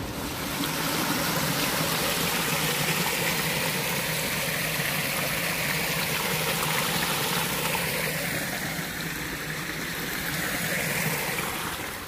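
Shallow stream running steadily over rock, water splashing down a small cascade.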